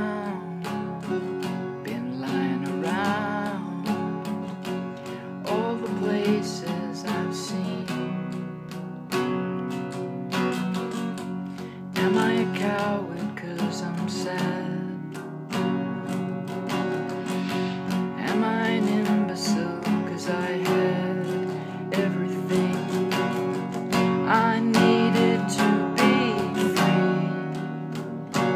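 Acoustic guitar strummed in a steady rhythm, with a man singing over it at intervals.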